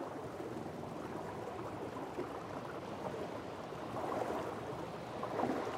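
Sea water sound: a steady rush of water, swelling twice near the end.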